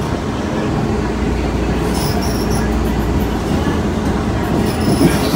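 MBTA Green Line light rail train running, with a steady rumble of wheels on rail. Two brief high-pitched wheel squeals come through, about two seconds in and again near the end.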